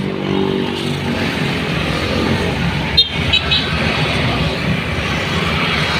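Road traffic noise with a vehicle engine running; its pitched hum fades within the first second. About halfway through comes a sharp click, then a few short high-pitched beeps.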